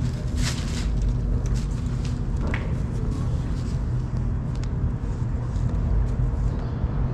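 Steady low rumble of road traffic on the bridge overhead, with a few faint clicks.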